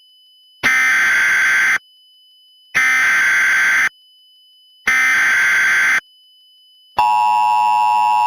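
Emergency Alert System SAME header: three loud bursts of warbling data tones, each about a second long and about a second apart. About seven seconds in, the steady two-tone EAS attention signal starts, which heralds the broadcast warning.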